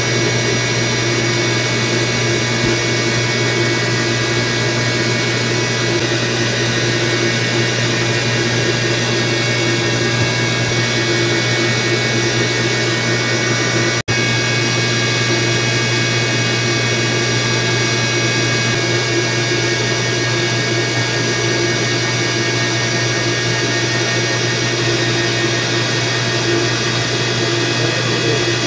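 Steady, loud drone and hum of electric motor pumps running in a pump house, with several steady tones over a strong low hum. It breaks off for an instant about halfway through.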